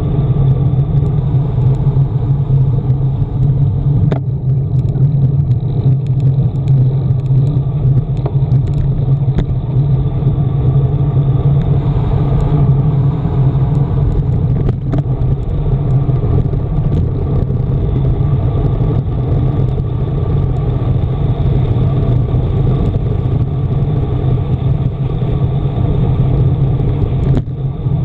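Steady, loud wind rushing over the microphone of a camera on a road bike descending at speed, with a few brief clicks.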